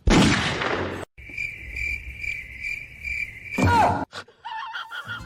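A short, loud hissing burst, then a steady, high, insect-like chirping like crickets, pulsing about twice a second. Near the end a brief loud call dips and rises in pitch.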